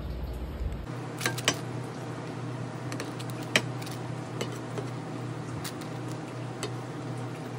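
A ceramic plate clinks and taps against a non-stick pan as cooked rice is tipped in and layered for dum biriyani. There are a few sharp clicks, the loudest about three and a half seconds in, and a steady low hum underneath.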